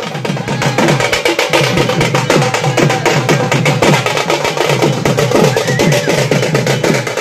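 A group of drums beaten in a fast, even rhythm, several strokes a second, with no break.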